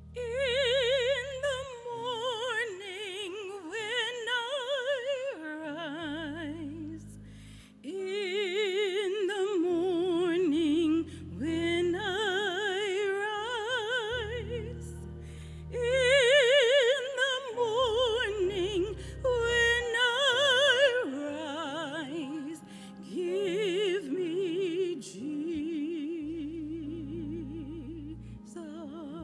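A woman singing a slow solo in a full, operatic voice, with wide vibrato on long held notes, over sustained low keyboard chords.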